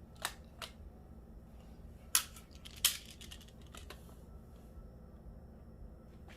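Plastic magnetic building tiles clicking together as pieces are snapped into place: a handful of separate sharp clicks, the two loudest about two and three seconds in.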